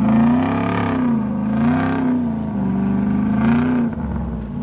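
A six-wheeled 6x6 pickup truck's engine revving up and falling back, its pitch rising and dropping about three times.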